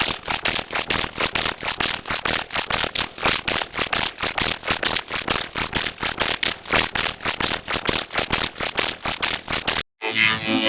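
An edited sound-effect clip chopped into a fast rattling stutter of short noisy hits, about six a second. It cuts off suddenly near the end, and synth keyboard music starts.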